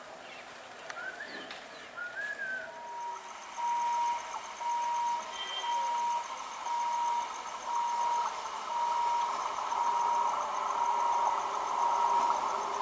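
Level-crossing warning beeper sounding a single electronic tone on and off at an even pace, starting about three seconds in. Under it, a rising rumble of the approaching train grows louder toward the end.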